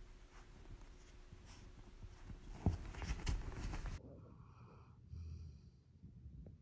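Scratchy rustling and clicks, loudest in the middle, as a golden retriever puppy nuzzles an adult dog. It cuts off abruptly and is followed by a sleeping golden retriever's soft snoring breath.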